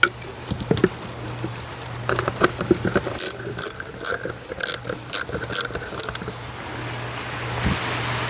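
Hand socket ratchet with a number 10 socket clicking as it turns a fastener into the wall. A run of sharp clicks, about two a second, starts about two seconds in and stops about six seconds in.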